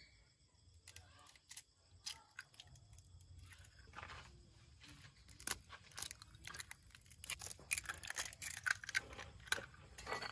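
Raw eggs being cracked and their shells pulled apart by hand, one after another, over a hollowed-out watermelon half: a run of small, sharp cracks and crunches, sparse at first and coming thick and fast in the second half.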